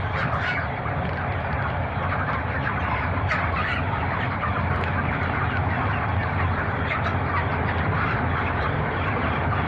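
A large flock of broiler chickens in a poultry shed calling and chirping all together, over the steady hum of the shed's ventilation fans.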